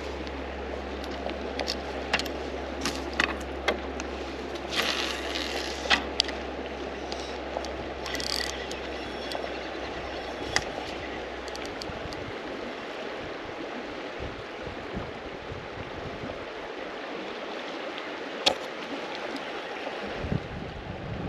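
A river running steadily over riffles, a constant rushing hiss, with a low rumble under it that stops about halfway through. Scattered sharp clicks and knocks come through it, most of them in the first few seconds and one loud one near the end.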